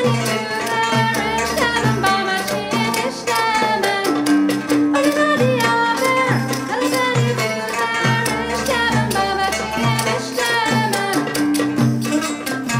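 Middle Eastern folk music from a small ensemble: a melody with gliding notes over a steady, repeating hand-drum rhythm.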